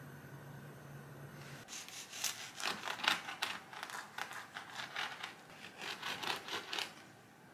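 Rapid, uneven scratchy strokes of crinkling and scraping, like hands working packaging or a utensil during kitchen food preparation. They begin about one and a half seconds in, when a low steady hum stops, and die away near the end.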